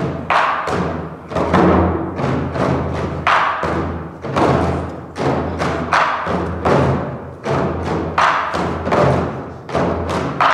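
Drum music: heavy, ringing drum strokes about once a second over sustained low instrumental tones.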